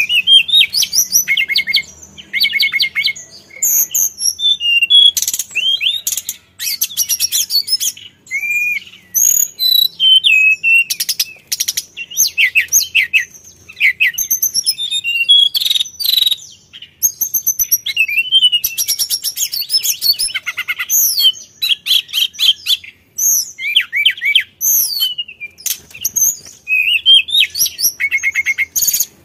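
Male hill blue flycatcher (tledekan gunung) singing a long, varied song. It runs through quick high whistled and slurred notes with several fast trills, phrase after phrase with only short pauses.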